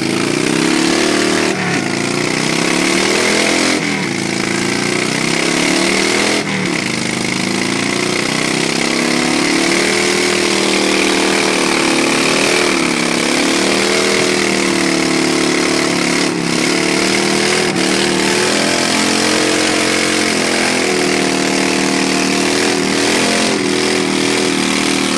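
Engines held at high revs during burnouts, the pitch wavering up and down. There are a few sudden breaks in the first several seconds.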